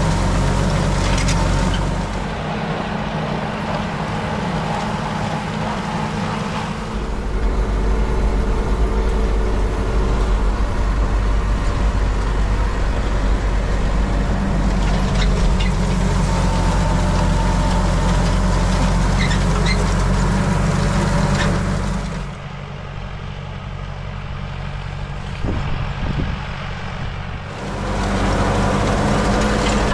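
Massey Ferguson 698T tractor's turbocharged diesel engine running steadily under load while it drives a PTO rotary hay tedder, heard from the cab. A little past the middle the sound drops lower and duller for about five seconds, then comes back.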